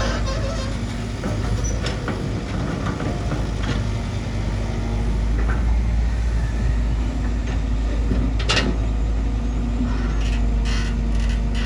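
Bulldozer's diesel engine running steadily under load, with a few sharp cracks or clanks, the loudest about eight and a half seconds in.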